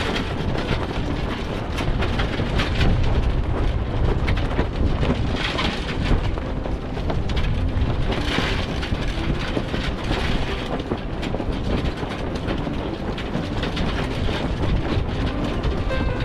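Strong wind buffeting the microphone with water rushing along a sailboat's hull, a steady rumbling roar with louder hissing surges about a third of the way in and again around halfway.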